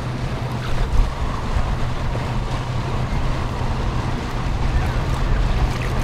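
Wind buffeting the microphone over a steady low engine hum from a motorboat moving nearby, with water noise underneath.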